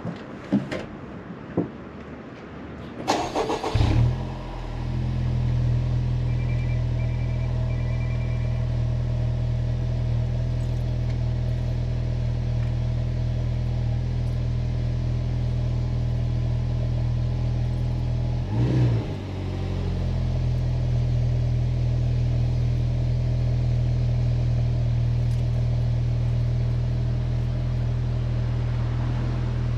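Honda Civic Type R FK8's 2.0-litre turbocharged four-cylinder on its stock exhaust: a few clicks, then a brief crank and the engine catches about four seconds in and settles into a steady idle. About two-thirds of the way through there is one short blip of the throttle before it returns to idle.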